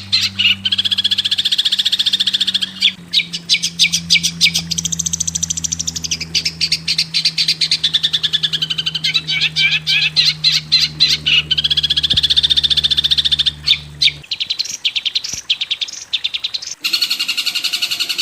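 Recorded songbird calls from a masteran training track for long-tailed shrikes: fast, high-pitched rattling trills and chatter in quick repeated runs, over a low steady hum that stops about 14 seconds in. Near the end the sound changes to a denser, continuous high chatter.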